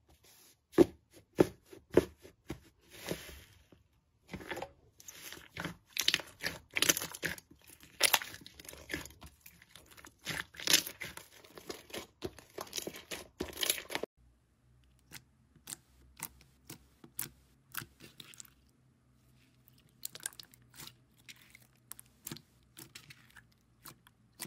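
Hands squishing, pressing and stretching slime: a dense run of sticky clicks and crackles. About fourteen seconds in it changes to sparser, quieter clicks and squelches over a faint low hum.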